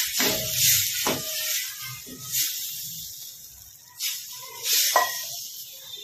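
Water hissing and sizzling in a hot pan of oil-fried vegetables and masala, just added; the hiss slowly dies away. A spatula scrapes and knocks against the pan several times while stirring, loudest about five seconds in.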